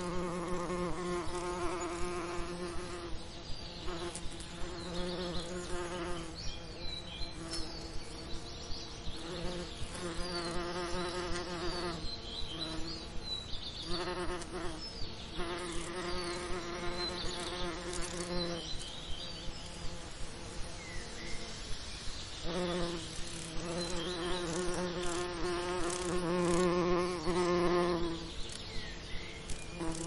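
Bees buzzing, a low buzz with a steady pitch that swells in and fades out in passes of a few seconds, several times over, with small bird chirps high above.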